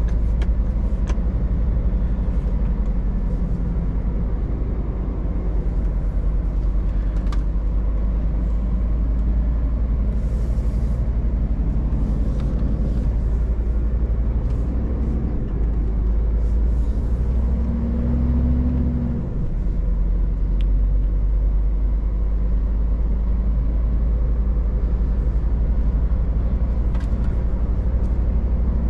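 Scania S500 truck heard from inside the cab: a steady low diesel engine drone with road noise. About two-thirds through, the engine tone briefly shifts, and a few faint clicks come and go.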